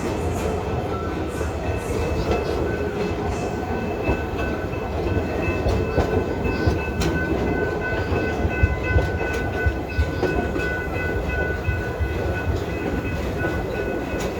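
Passenger cars of a park railway train rolling along the track: a steady rumble of the wheels with scattered clicks over the rail joints, and a faint steady high whine over it.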